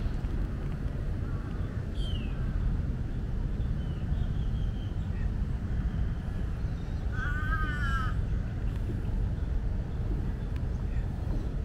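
Outdoor ambience: a steady low rumble with bird calls over it, a short falling chirp about two seconds in and a longer wavering call with several layered pitches a little past the middle.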